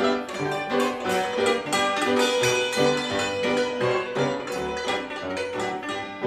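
Concert cymbalom played with hammers in fast runs of struck, ringing notes, in Romanian folk style, with a Bösendorfer grand piano accompanying underneath with low bass notes.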